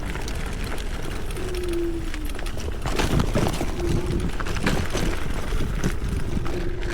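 Electric scooter riding over a gravel trail: tyres crunching and the scooter knocking and rattling over bumps, busier from about three seconds in, with wind noise and a motor whine that comes and goes in short spells.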